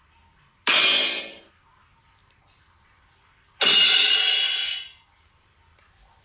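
Two cartoon crash sound effects, each a sudden cymbal crash that dies away: a short one under a second in and a longer one about three and a half seconds in.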